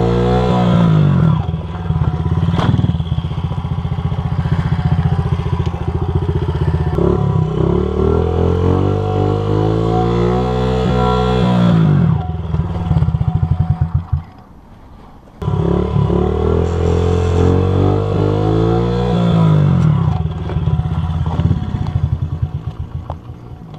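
Small 50cc single-cylinder four-stroke motorcycle engine, a Honda CRF50, being ridden and revved. It climbs and holds its revs, and the pitch drops sharply about a second in, near twelve seconds and near twenty seconds. The sound falls away briefly around fourteen seconds.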